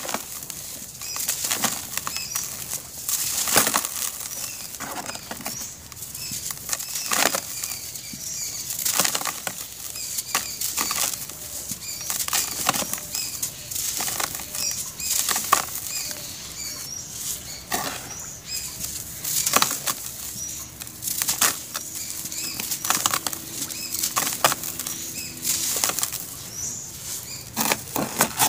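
Dry, powdery charcoal-ash chunks being squeezed and crumbled by hand: a dense run of irregular crunches and crackles with crumbs and powder sifting down, some crushes louder every second or two.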